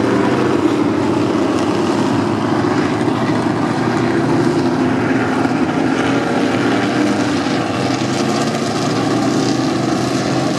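Vehicle engines running at a steady idle, a continuous low drone.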